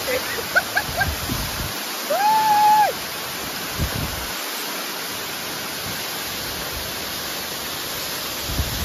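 Waterfall rushing steadily. About two seconds in, a single held call like a voice, lasting under a second.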